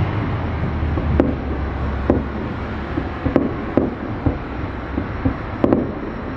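Distant aerial fireworks bursting: about six sharp booms and cracks at irregular intervals, two of them close together, over a low background rumble.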